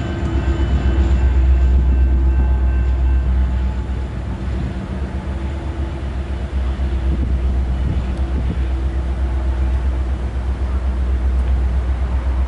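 Loaded BNSF coal train passing and moving off, a steady low rumble from its diesel locomotives and cars. An engine hum is plainest in the first few seconds, then fades.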